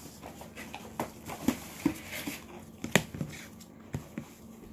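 Hands handling banded decks of game cards over plastic packaging: a string of light taps and knocks with some rustling in between, the sharpest knock about three seconds in.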